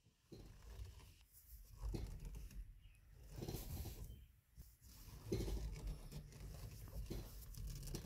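Steering noise from a 2009 Chevy Cobalt's front suspension as the steering wheel is turned, with the stabilizer bar links disconnected: faint creaking and crunching in several bouts. The owner believes the remaining noise comes from the worn strut bearings between the body and the strut.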